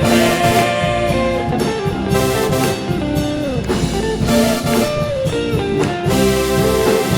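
Live band playing an instrumental passage, with guitar over drum kit.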